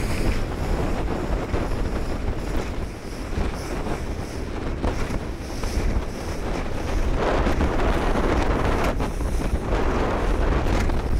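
Wind buffeting the microphone, with water slapping against the hull of a small fibreglass boat on choppy water; a little louder from about seven seconds in.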